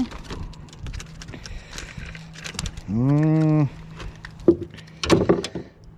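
A speckled trout landed on a boat deck. About three seconds in comes a short, low, steady hum lasting under a second, the loudest sound here, followed by a few sharp knocks and clatters as the fish is handled on the deck.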